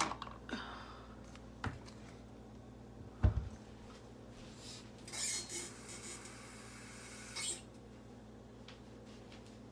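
A few knocks of kitchenware being handled, the loudest about three seconds in, then a kitchen tap running for about two and a half seconds to fill a measuring cup with water, shut off sharply.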